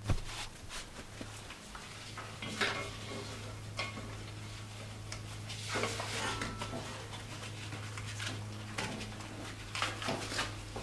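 Handling noise of a bandsaw tire being worked onto the upper wheel by gloved hands: irregular rubbing, rustling and light knocks and clicks against the wheel and cabinet, over a steady low hum.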